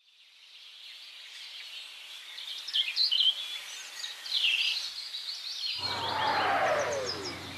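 Birds chirping over a faint outdoor ambience that fades in, then about six seconds in a low rumble and a falling whistle, like an incoming artillery shell.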